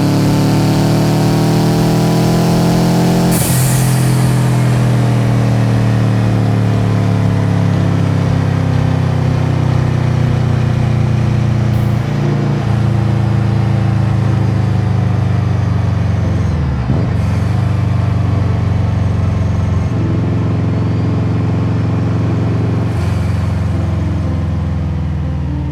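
Turbocharged Subaru EJ207 flat-four with a straight-pipe exhaust, driven hard: the engine pitch climbs, breaks and drops at about five gear changes. Several of the changes carry a short hiss from the Forge blow-off valve venting boost.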